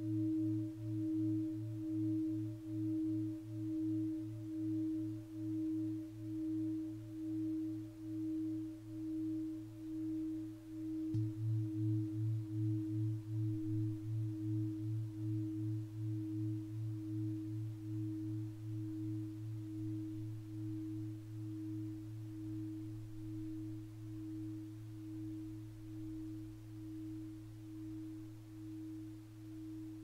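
Venus-tuned Tibetan bell ringing on in a long sustained tone, a low hum under a higher note, its volume wobbling a little under twice a second. The ringing jumps back up sharply about eleven seconds in, then slowly dies away.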